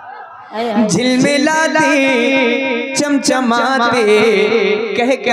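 A man singing a naat into a microphone through a PA, in long ornamented lines that slide and waver in pitch. He comes back in after a short breath about half a second in.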